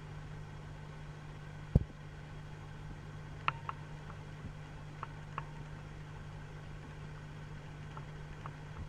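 Steady low mechanical hum, with one sharp knock about two seconds in and a few faint ticks afterwards.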